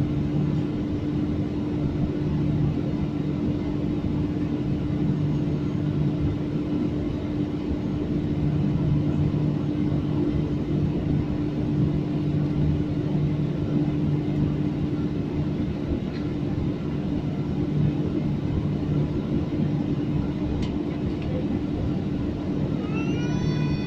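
Steady airliner cabin noise during taxi: the jet engines running at low power, giving an even rumble with a steady low hum, heard from inside the passenger cabin.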